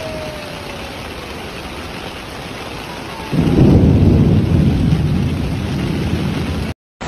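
Heavy rain falling steadily, with a long low rumble of thunder that sets in about three seconds in and goes on for several seconds.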